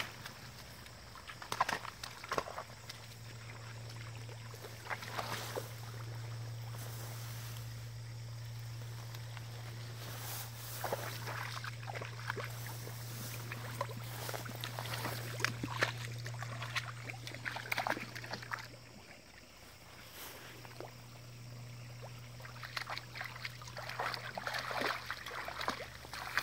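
A Bernese Mountain Dog wading through a shallow stream, with water sloshing and splashing around its legs and body in irregular bursts. A steady low hum runs underneath and drops out briefly about two-thirds of the way through.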